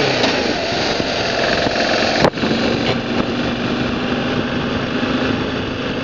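BMW G650GS single-cylinder motorcycle engine running under way, mixed with a steady rush of wind noise. A sharp knock comes a little over two seconds in, and a steady engine hum holds after it.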